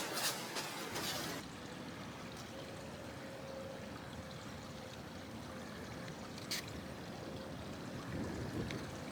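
Outdoor trail ambience: a steady low rush with a faint even hum from about two seconds in, and a few sharp clicks, louder in the first second or so and once more about six and a half seconds in.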